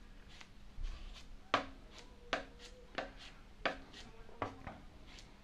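Spreader working body filler into holes in a fiberglass bumper: a series of short, sharp taps and scrapes, roughly one every three-quarters of a second.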